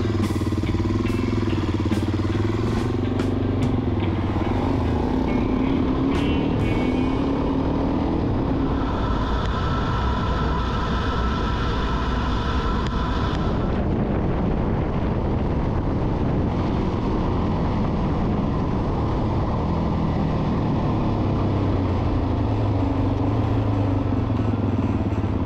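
Suzuki DR-Z400 single-cylinder four-stroke trail bike engine running under way on a dirt road, its revs rising and falling, with road and wind noise.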